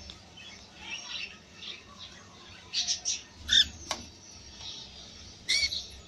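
Cockatiels giving short squawking calls, a few in quick succession a little past the middle and a louder pair near the end, with fainter chirps before them and one sharp click between.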